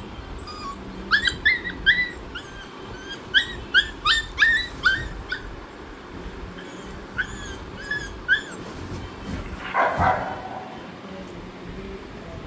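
A dog whimpering and yipping in short, high-pitched squeaks, a quick run of them and then a second, sparser run, followed by a brief rustle.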